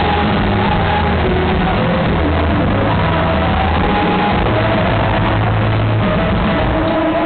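Rock band playing live at high volume, recorded from within the audience, with long held bass notes under a dense wash of instruments.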